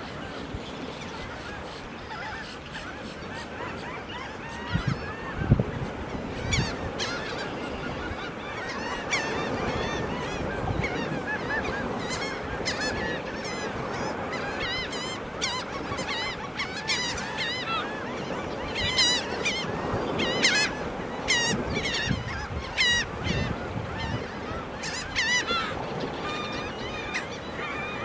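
A mixed flock of ruddy turnstones, red knots and small sandpipers calling all at once, a dense chatter of many short, overlapping calls. The sharp high calls grow thicker and louder about halfway through.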